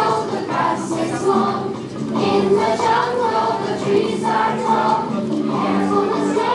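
A large group of adults singing a simple action song together, many voices at once.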